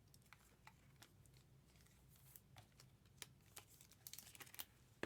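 Faint handling sounds of trading cards and their packaging: scattered light clicks and crinkles, a little busier about four seconds in.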